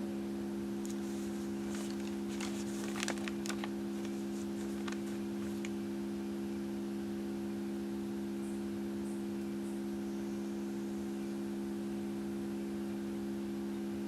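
Tone generator playing a steady 68 Hz test tone, heard as a constant low hum. A few light clicks come in the first few seconds.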